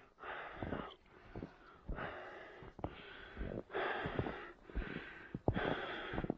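A runner breathing hard through the mouth, a rushing breath about once a second, with short low thumps between the breaths.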